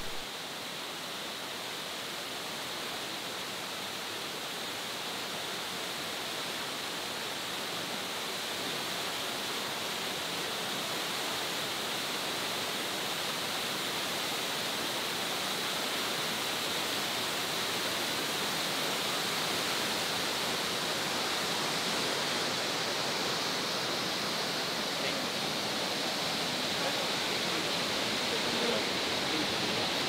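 A waterfall's steady rush of falling water, growing slowly louder.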